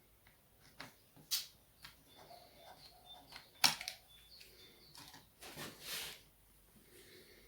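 Sharp small clicks and light handling taps from work inside a laptop while its NVMe SSD is unscrewed and pulled out. The loudest click comes about three and a half seconds in.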